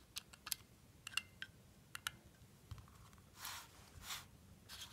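Faint light clicks as the last vane is pressed by hand into the rotor of a 200-4R automatic transmission front pump and seated, several in the first two seconds, then three short soft rustles.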